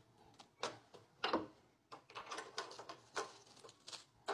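A few clicks and knocks from a manual semi-industrial paper guillotine as its handle is let up after a cut, the loudest about a second in. Then comes soft rustling as the paper offcuts are handled.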